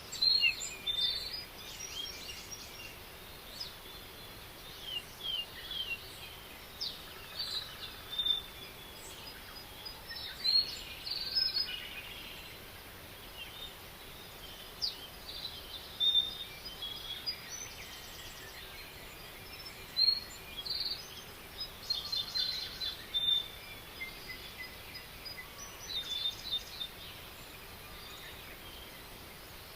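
Songbirds calling and singing: scattered short chirps and quick trills, several in a row at times, over a faint steady hiss.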